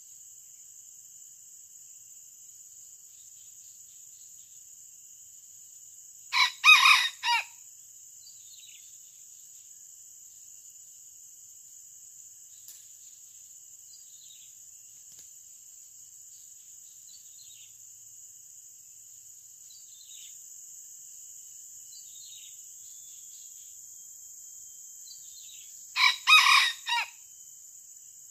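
Red junglefowl rooster crowing twice, about twenty seconds apart. Each crow is short, about a second long, in four quick syllables, over a steady high-pitched insect drone.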